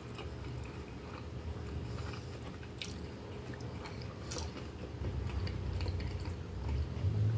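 Close-miked chewing of a mouthful of oven-baked instant noodles with sausage, with two sharp clicks along the way. Near the end come gulps of a drink from a glass.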